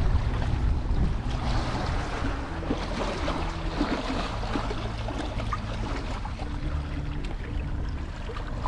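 Wind rumbling on the microphone over a steady wash of sea water against rocks.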